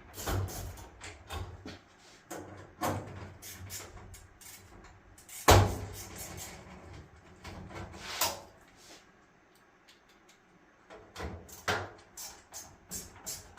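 Irregular knocks and clicks of sheet-metal and plastic dryer housing parts being handled and pressed into their slots, with one sharp loud knock about five and a half seconds in and another about two and a half seconds later.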